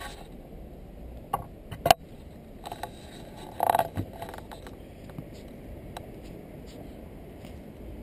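A steady low background noise with a few sharp knocks, the loudest about two seconds in, and a short scraping burst a little before halfway.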